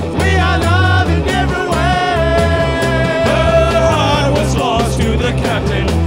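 Live rock band playing an upbeat song: steady drums and bass under a wavering lead melody that holds one long note in the middle.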